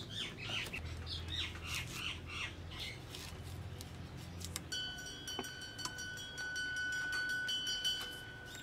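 Birds chirping and squawking in quick, short calls during the first few seconds. About halfway through, a steady high whistling tone comes in and holds until the end.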